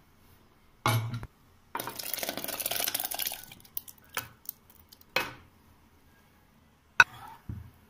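Cooked, mashed moong dal scraped from a pan with a spoon and slopping into the sago water in a pressure cooker. A knock comes about a second in, then about two seconds of scraping and sloshing. A few sharp taps of spoon and pan against the cooker follow, the loudest near the end.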